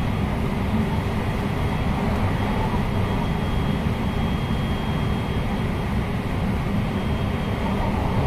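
Running noise of a JR West 223 series 6000-subseries electric train, heard from inside the car at speed: a steady rumble of wheels on rail with a faint high whine running through it.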